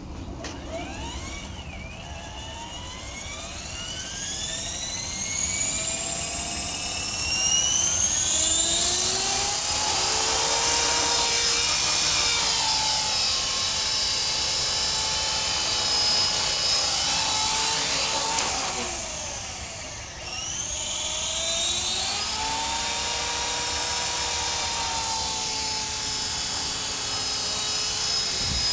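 CopterX 450SE electric RC helicopter's motor and rotor spooling up in a whine that rises over several seconds, then holding a steady high whine of several tones as it flies. The pitch and loudness sag briefly about two-thirds of the way through and climb back.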